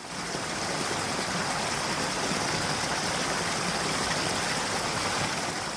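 Steady downpour of heavy rain, an even hiss and rush that holds level throughout and then cuts off abruptly.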